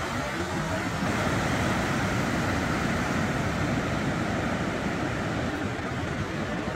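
Surf breaking and washing up a sandy beach, a steady rushing noise, with wind rumbling on the microphone.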